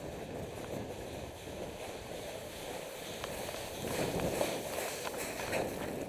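A runner's footsteps on gravel, picked up by a helmet-mounted camera, growing a little louder about four seconds in.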